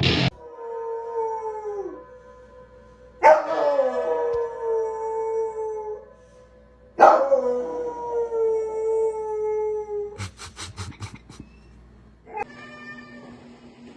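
A dog howling: three long howls, each about three seconds, drooping in pitch at the end, followed by a quick run of about six short sharp sounds and a fainter call near the end.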